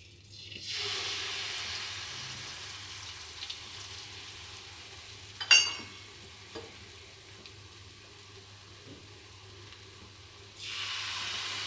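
Egg-and-wheat-flour batter sizzling as it is poured into hot oil in a non-stick kadhai. The sizzle starts under a second in, slowly dies down, and rises again near the end as more batter goes in. A sharp clink sounds about halfway through.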